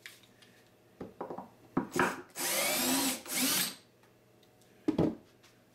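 Cordless drill backing a screw out of a wooden pallet board: a few clicks as the bit seats, then the motor running in two short spells of under a second each. A sharp knock follows near the end.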